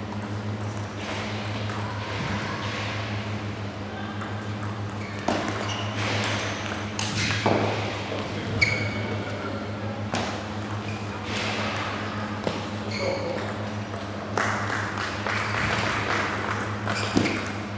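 Table tennis rallies: the celluloid-type ball clicking sharply off the bats and the table in quick exchanges, with pauses between points. A steady low hum runs underneath.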